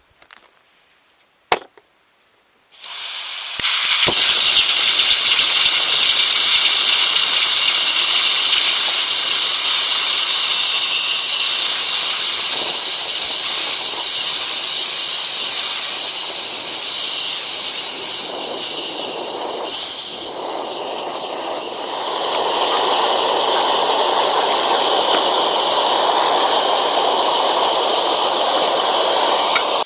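SOTO MUKA pressurised gasoline camp stove: a sharp click about a second and a half in, then the burner catches about three seconds in and burns with a loud, steady hiss. About 22 seconds in the hiss grows fuller and lower.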